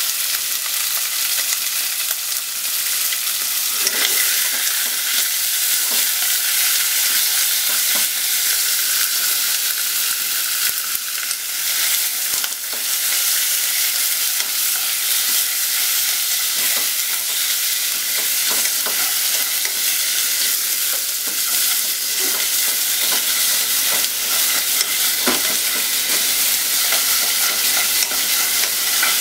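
Chicken pieces sizzling steadily in hot oil in a nonstick pot, with the scrape and knock of a wooden utensil against the pot now and then as they are stirred and turned.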